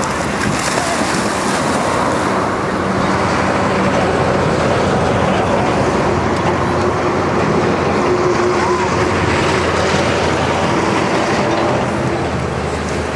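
Loud steady rushing noise of wind buffeting the microphone at a windy lakeshore, with a faint low steady hum underneath.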